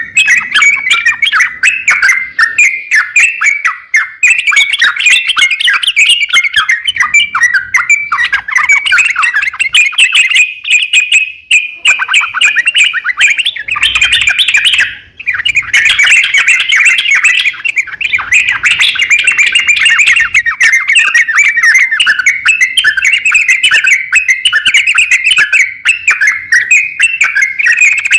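A crokcokan songbird singing a fast, nonstop chattering song of quick chirps, the persistent 'gacor' singing kept by bird keepers as a master recording for training other birds. The song breaks off briefly twice, about halfway through.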